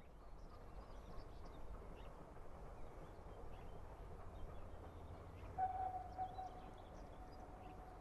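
Distant steam locomotive whistle: one steady note held for about two seconds, starting a little past halfway, over faint birdsong and a low wind rumble.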